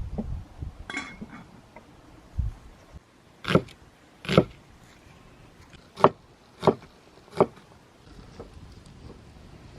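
A series of sharp knocks: five hard strikes spaced roughly a second apart, after a lighter clatter about a second in.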